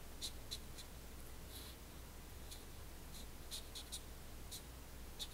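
Felt-tip pen scratching on paper in short, irregular strokes while drawing zigzag resistor symbols.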